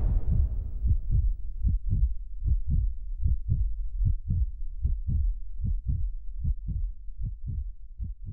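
Low, heartbeat-like thumps repeating at about four a second, fading away near the end.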